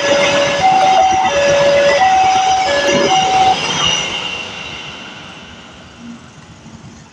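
Railway level-crossing warning siren sounding a two-tone alarm, alternating high and low about every two-thirds of a second, that cuts off about three and a half seconds in. Under it a passing train's noise dies away.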